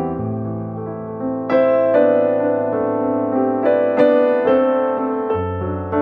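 Background piano music: slow chords and melody notes over held bass notes.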